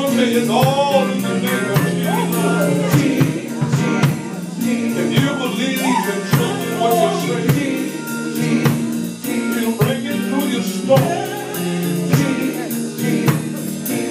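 Live gospel music: a group of singers on microphones singing over a band, with sustained low instrument notes and a steady drum beat.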